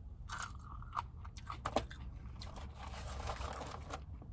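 Close-miked eating sounds of a person chewing crunchy fried food: a few sharp crunches and mouth clicks, then about a second and a half of wet, noisy mouth sound.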